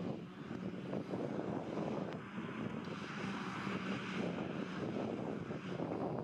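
Claas Jaguar 870 self-propelled forage harvester chopping grass, with the New Holland tractor beside it: a steady engine and machinery drone, with a faint high whine for about a second near the middle.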